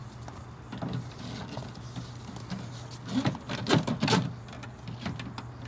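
Corrugated sewer hose and its plastic end fitting rustling and scraping as they are pushed into a plastic Valterra E.Z. Hose Carrier tube, with a run of louder knocks and scrapes about three to four seconds in. A steady low hum sits underneath.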